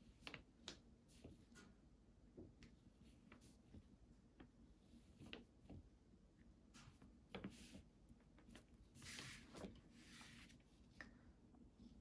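Near silence, with faint scattered taps of a round watercolour brush dabbing small dots of paint onto paper, and a short soft rustle around nine to ten seconds in as the sheet of watercolour paper is turned.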